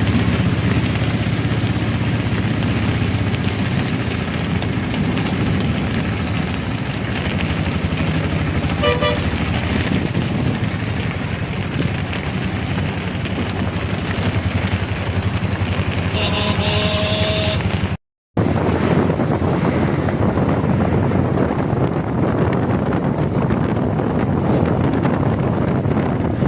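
Street traffic on a rain-flooded road: vehicle engines under a steady rushing noise, with a short horn toot about nine seconds in and a longer honk around sixteen seconds. The sound breaks off for a moment about eighteen seconds in, then the steady rushing noise carries on.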